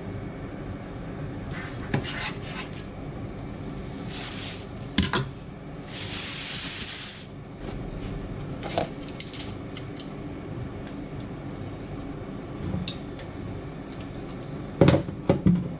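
Dishes and cutlery clinking and knocking during kitchen work, over a steady low background hum. There are two short bursts of hiss, about four and six seconds in, and a cluster of louder clanks near the end.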